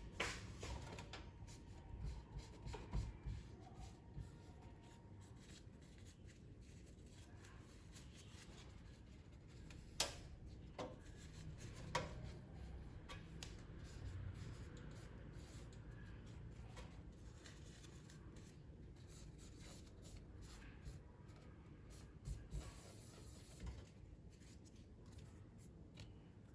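Faint handling noises as parts of a CPU cooler are worked by hand: scattered light clicks, knocks and rubbing, with one sharp click about ten seconds in.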